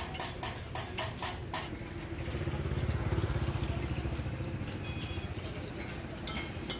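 A quick run of light clinking taps in the first second and a half, then a motor vehicle's engine rumbling, swelling to its loudest about three seconds in and slowly fading as it goes by.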